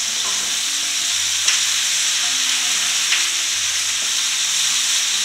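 Sliced onion, red and green bell peppers and chili sizzling in olive oil in a frying pan as they are sautéed, a steady frying hiss. A spatula clicks lightly against the pan twice.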